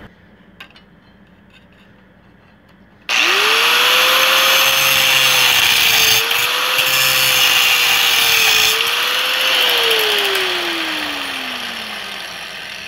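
Hitachi angle grinder switched on about three seconds in, its motor whining up to speed as the disc cuts through a steel nail, the pitch dipping twice under load. Near the end it is switched off and the whine falls steadily as the disc spins down.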